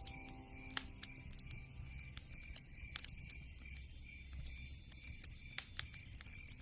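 Wood fire in a fireplace crackling, with frequent irregular sharp pops and snaps over a low rumble of the flames.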